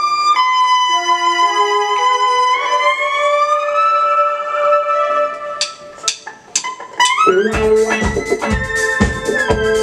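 Live band music: the intro opens on held melodic notes, one of them gliding slowly upward, then a few sharp hits, and the full band with drum kit comes in with a steady beat about seven seconds in.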